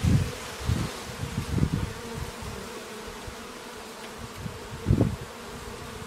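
A swarm of honeybees buzzing steadily as they fly around hive entrances, with low rumbles near the start and again about five seconds in.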